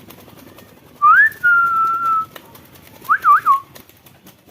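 Clear whistling: a whistle that rises and then holds a steady note for about a second, followed near the end by a quick up-and-down wavering whistle.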